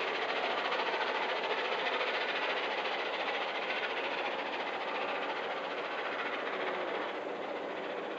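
Steam-hauled passenger train behind A1 Pacific 60163 Tornado rolling away along the line: a steady rumble of wheels on rails, slowly fading.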